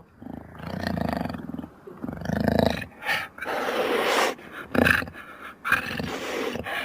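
Jagupard creature sound effects: a run of about six growls and roars, some short and some lasting over a second.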